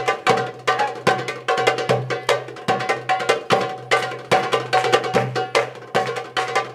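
Two doumbeks (goblet drums) played together in a fast, dense rhythm: many crisp strokes a second, with deep ringing bass tones under some of them.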